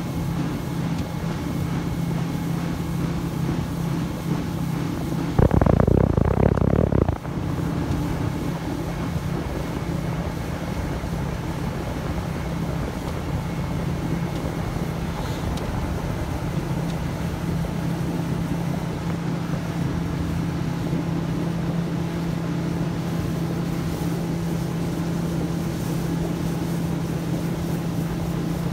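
Boat's outboard motor running steadily under way, a constant hum with water and wind noise. About five seconds in, a louder rush of noise lasts for under two seconds.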